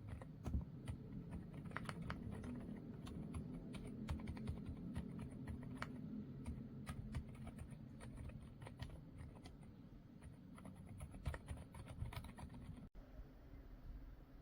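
Typing on a COX CQK81 mechanical keyboard with Deep Oil switches: a quick, uneven run of keystrokes that thins out near the end.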